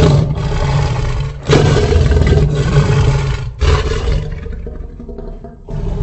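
Custom sound-effect roars of the Indominus rex, a hybrid dinosaur: deep roars one after another, each about two seconds long. A fresh roar begins about a second and a half in, another after three and a half seconds, and one more near the end.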